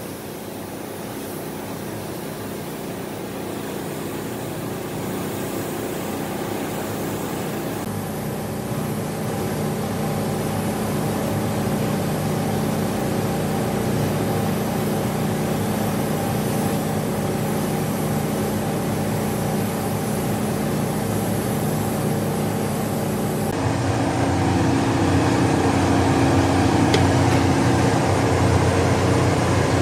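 Gravity-feed spray gun hissing as it sprays paint in a spray booth, over the steady drone of the booth's air system. About 23 seconds in the sound changes abruptly to a different, louder steady machine hum.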